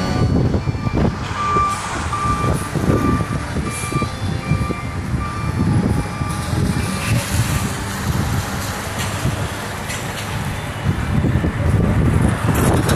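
A vehicle's reversing alarm beeping in an even series of short high tones, about two a second, for roughly five seconds, over uneven low street noise.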